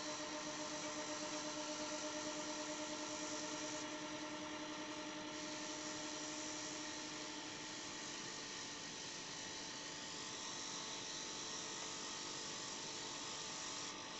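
Homemade silent air compressor running steadily: a hum of several steady tones over an even hiss, the lowest tone fading out about halfway through.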